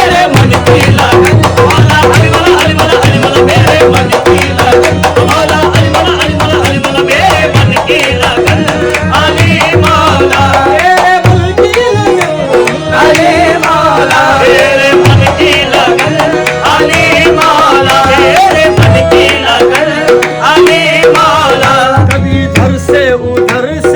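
Qawwali music with no sung words: a wavering harmonium melody over a steady tabla rhythm, loud and unbroken.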